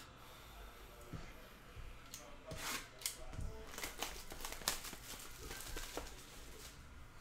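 A cardboard trading-card box (Panini Donruss Optic basketball retail box) being handled and opened: irregular crinkling, tearing and rustling of its wrapping with small clicks, busiest in the middle.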